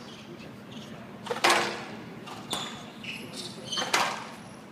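Squash rally on a glass court: the ball cracking off the rackets and walls in a few sharp hits roughly a second apart, the loudest about a second and a half in.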